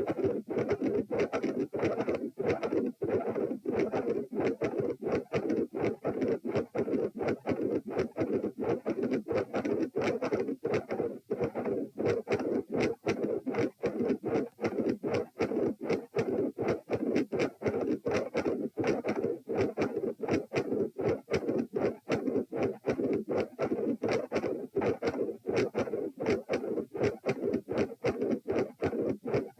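Doppler ultrasound probe on the chest giving the whooshing sound of blood flow through the heart, pulsing in a steady rhythm with each beat. The uploader describes the heart as having multiple murmurs.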